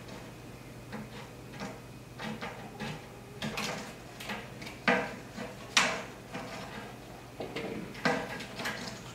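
Utility knife cutting and scraping along iron-on wood edge banding, trimming it flush with a plywood shelf edge. An irregular series of short scrapes and clicks, the loudest about five and six seconds in.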